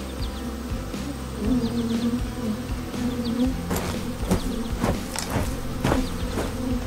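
A swarm of bees buzzing: a steady, wavering drone. A quick series of sharp clicks or taps starts a little past halfway and runs for about two and a half seconds.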